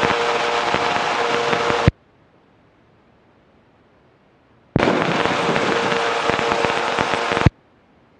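Engine and wind noise coming through the autogyro's intercom as the headset microphone switches open: a steady rush with a faint hum cuts off abruptly about two seconds in, then cuts back in about five seconds in and stops again just under three seconds later, each switch marked by a click.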